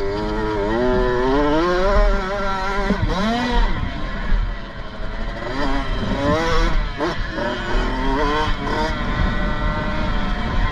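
Kawasaki KX65 single-cylinder two-stroke dirt-bike engine heard from on the bike, revving hard. Its pitch climbs and falls over and over as the throttle is opened and shut, with a short let-off about four to five seconds in.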